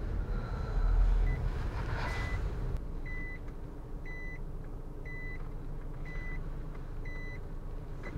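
A vehicle's reverse warning beeper sounding short, even beeps of one pitch about once a second over the low running of a car engine. Two shorter beeps come first, and the regular beeping starts about three seconds in.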